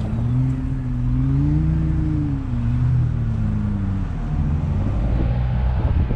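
Ford Bronco's engine running under load. It revs up for about two seconds, then eases off and settles lower.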